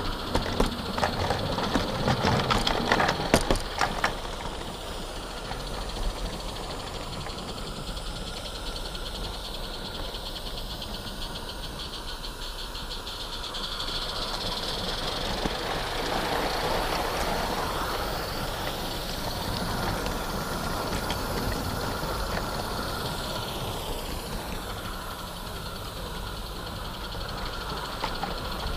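Small live-steam garden railway train running, heard from on board a wagon: the little wagons rattle and their wheels click over the track, with a hiss of steam from the locomotive. A spell of louder, rapid clicking and clattering fills the first few seconds, then the running settles to a steady rattle.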